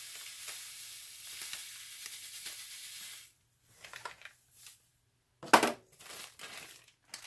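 Himalayan pink salt pouring from a plastic bag into a plastic measuring cup: a steady, grainy hiss that stops suddenly about three seconds in. Softer rustles follow, then a brief loud crackle about five and a half seconds in as the salt bag is handled.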